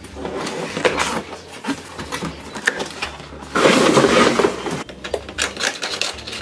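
Hands opening a toy's cardboard and plastic packaging: a string of clicks, taps and rustling, with a louder stretch of rustling a little past halfway.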